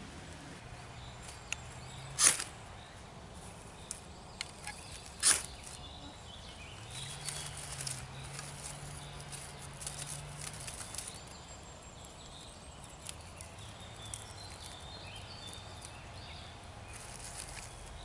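Small fire of wood shavings and twigs crackling faintly, with scattered sharp clicks and snaps. Two louder snaps come about two and five seconds in. A faint low drone comes and goes underneath.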